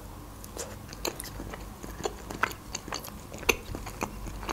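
A person biting into a slice of pizza and chewing it, a string of irregular sharp clicks from the mouth and crust.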